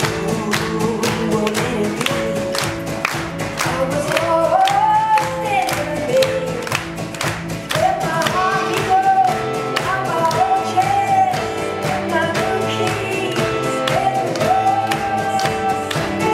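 Live folk-pop band playing an upbeat song over a steady drum beat, with a woman's voice carrying the melody from about four seconds in.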